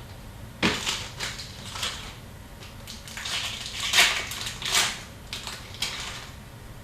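Hockey trading cards and their packaging being handled, with irregular crinkling and rustling, loudest about four seconds in.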